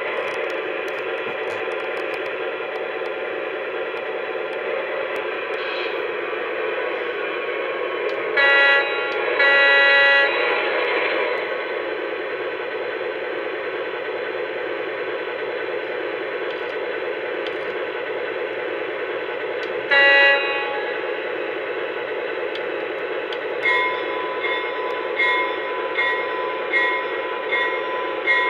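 Lionel O-gauge Canadian Pacific FT diesel locomotive running on its track, its RailSounds speaker playing a steady diesel engine rumble. The horn sounds a short blast and then a longer one about eight to ten seconds in, and another short blast near twenty seconds. Then the bell starts ringing, about one and a half strokes a second.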